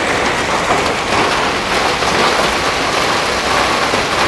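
Heavy hail and rain pelting the pavement and shrubs: a loud, steady, dense patter.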